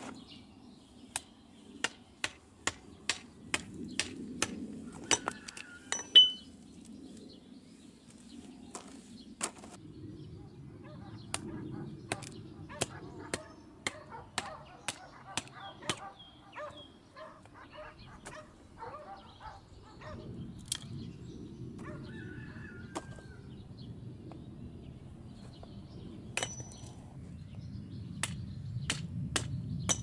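Hatchet chopping kindling on a stone block: runs of sharp knocks, about two a second, with pauses between the runs.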